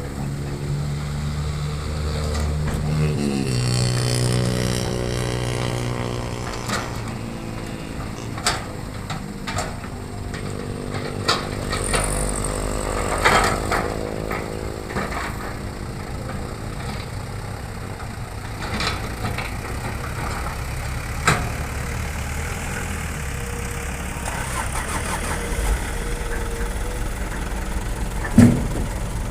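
Diesel engine of a Hitachi hydraulic excavator running and revving up under load as it digs and swings, with several sharp knocks through the stretch.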